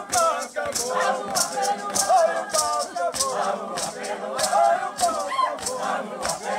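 Maracas shaken in a steady beat, about three shakes a second, under a group of voices singing a chant for a circle dance.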